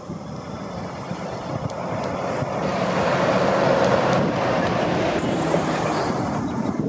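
Fire engine driving past close by, its engine and tyre noise swelling to a peak about three to four seconds in and then easing off, with wind on the microphone.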